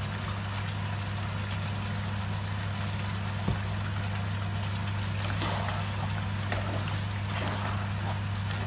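Curry simmering in a frying pan on a gas hob, under a steady low hum and hiss. There is a single sharp click about three and a half seconds in, and in the second half a spatula stirs and scrapes through the sauce.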